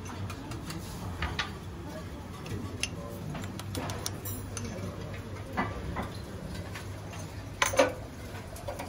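Scattered light clicks and taps of a metal spoon and utensils against a steel teppanyaki griddle, with one louder clink near the end, over a steady low hum.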